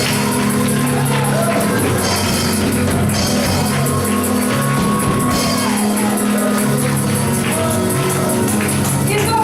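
Live gospel praise music: singing over sustained keyboard chords, with a steady beat of high jingling percussion. A long held sung note comes in the middle.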